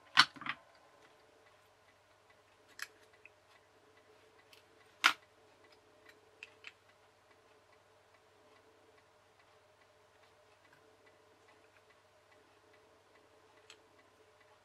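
Scattered small clicks and taps of plastic and fingers as a radio-control receiver's circuit board is worked out of its plastic case, where something sticky holds it; the sharpest click comes right at the start and another about five seconds in. A faint steady hum runs underneath.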